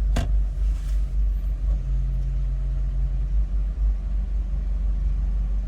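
Steady low rumble of a car heard from inside the cabin, with a short click just after the start.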